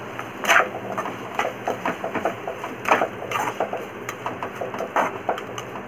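A metal slotted spoon stirring prawns and masala in a pan, scraping and clattering against the pan in an irregular run of knocks; the loudest knocks come about half a second, three seconds and five seconds in.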